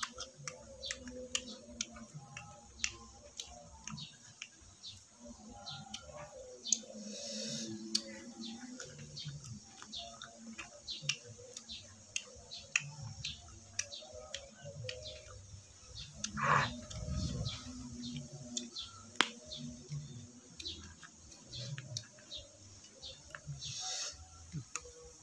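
Dry tamarind pods being cracked and peeled by hand and eaten: a steady run of sharp crackles and clicks from the brittle shells, with a louder crunching stretch about two-thirds of the way in.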